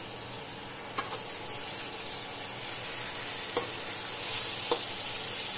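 Raw chicken pieces sizzling in hot oil with fried onions in a frying pan, the sizzle growing louder, with a few short knocks as the pieces are stirred.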